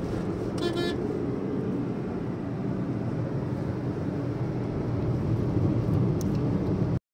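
Steady road and engine noise inside a moving car's cabin, with a short car-horn toot just under a second in.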